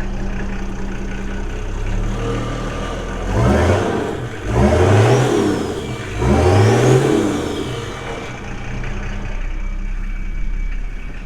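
Old diesel tow truck's engine running just after it started on the first try. Its revs rise three times in quick succession in the middle, then settle back to a steady run.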